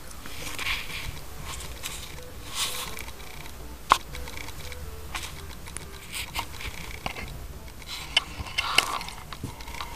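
Kittens scuffling and pouncing on carpet close to the microphone: scattered light scratches and clicks, a sharp click about four seconds in and a quick flurry of clicks near the end.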